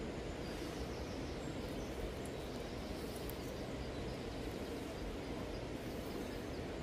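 Steady rush of a river flowing over stones, with a few faint bird chirps in the middle.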